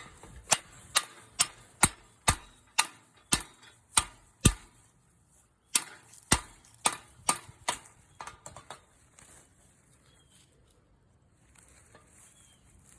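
Hammer tapping a metal fitting on a chain link gate upward, sharp metallic strikes about two a second in two runs with a short pause between, dying away about two-thirds of the way through.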